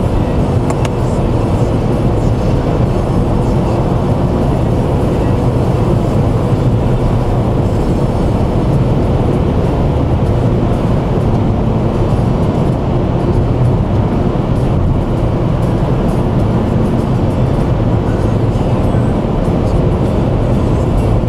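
Steady road and engine noise inside a car cruising at highway speed: an even low drone that holds the whole time.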